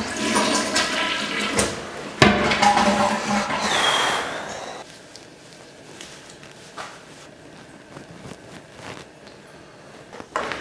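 Toilet flushing: a loud rush of water for about five seconds that ends in a brief gurgling whistle. It then drops to a much quieter hiss with a few small knocks.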